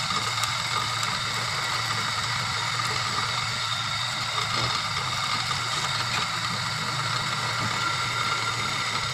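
Electric motor of a bangle-rounding machine running with a steady, even hum while a gold bangle is shaped round on its rollers.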